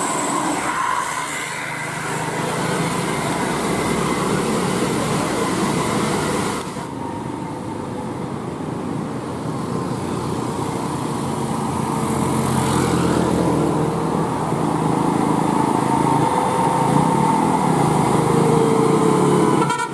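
Bus engines and road traffic running at a roadside, with a steady rumble and hiss. The sound changes abruptly about seven seconds in.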